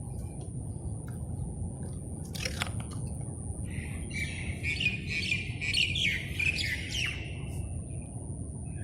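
A bird chirps in a quick run of calls for about three seconds in the middle, over the steady low rumble of the Fiat Punto's engine idling.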